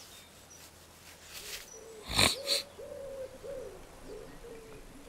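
Two loud, short blasts of a person blowing their nose into a tissue about two seconds in, with a pigeon cooing over them in a low run of rising-and-falling notes lasting nearly three seconds.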